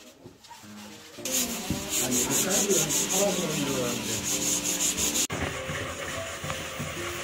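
Sandpaper rubbed by hand over a wooden cutting board in quick, rhythmic strokes, starting about a second in. It breaks off sharply about five seconds in and then goes on more quietly.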